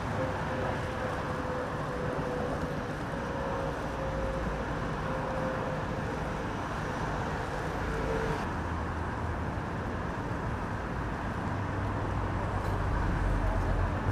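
Road traffic going by in a steady stream, a continuous low rumble with a faint whine through the first half.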